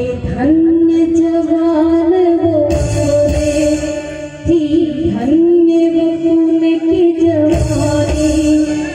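A woman singing long, held notes into a microphone over a musical backing, amplified through a PA.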